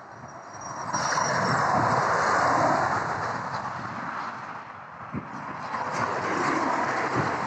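Cars passing on a motorway: tyre and engine noise swelling and fading, one pass peaking about two seconds in and another building near the end.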